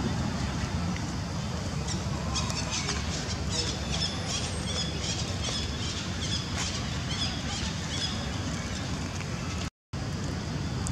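Outdoor ambience: a steady low rumble with a run of short, high chirps in the middle, and the sound cutting out for a moment near the end.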